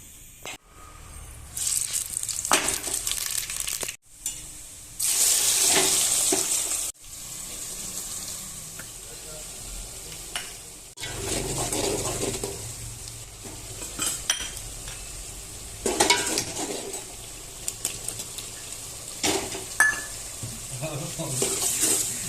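Food sizzling in hot oil in a pan while it is stirred, a spoon or spatula scraping and clinking against the pan. Two loud bursts of sizzling in the first seven seconds, and the sound breaks off abruptly several times.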